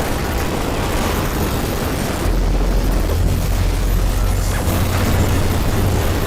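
Digital glitch-static sound effect: a continuous harsh hiss of noise over a deep rumble, the rumble growing heavier a little over two seconds in.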